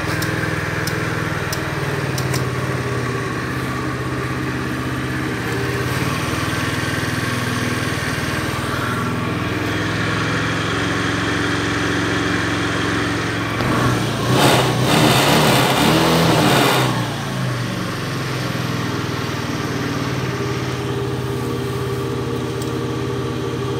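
Honda Dio Cesta AF62 scooter's small single-cylinder engine idling steadily, with one throttle rev about fourteen seconds in that lasts some three seconds before it drops back to idle.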